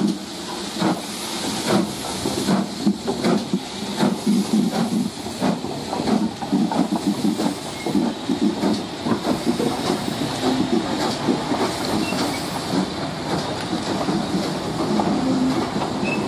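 GWR King class 4-6-0 steam locomotive No. 6023 King Edward II pulling away, with exhaust beats about twice a second over a steady hiss of steam from its open cylinder drain cocks. In the second half its coaches roll past with a rail rumble and the clack of the wheels.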